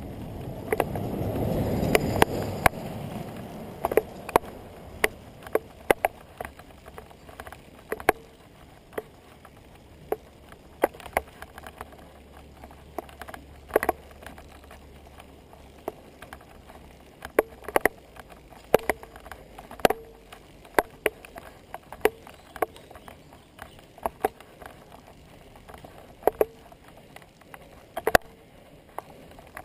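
A pickup truck passes in the first few seconds, its rumble swelling and fading. After that, a bicycle rolls over rough pavement, with many sharp irregular clicks and knocks from the bike and its handlebar-mounted camera and a few short squeaks.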